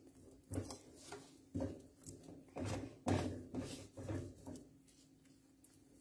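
Wooden spatula stirring and scraping thick cold-porcelain paste around a pan, in strokes about twice a second that stop near the end. The paste is thickening as more cornstarch is worked in.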